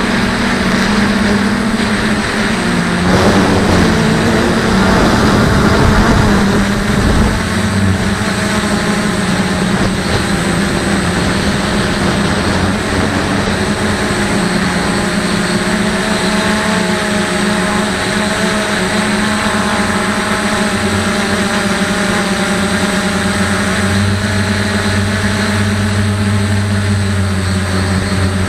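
DJI F450 quadcopter's motors and propellers humming steadily, heard through the camera mounted on the drone, the pitch wavering a little as the throttle changes.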